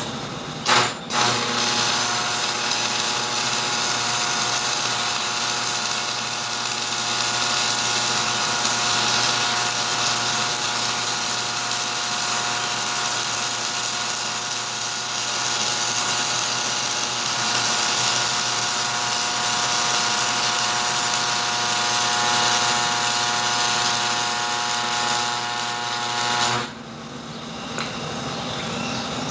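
Stick (shielded metal arc) welding with a 7018 electrode on a steel wheel rim. The arc strikes with a couple of sharp cracks about a second in, then burns with a steady sizzling over a steady hum, and is broken off suddenly near the end.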